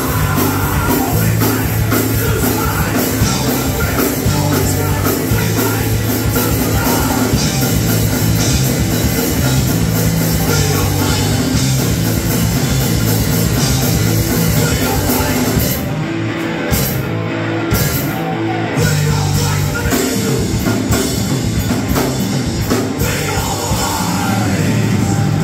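Punk rock band playing live: distorted electric guitar, bass and drum kit with a shouted lead vocal. About two-thirds of the way through the cymbals drop out for a few seconds, then the full band comes back in.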